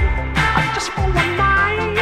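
Pop song playing: a gliding melody line over held bass notes.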